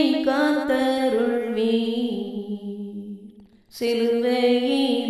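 A voice singing a slow Tamil hymn in long held notes. The phrase dies away about three and a half seconds in, and the next line begins straight after.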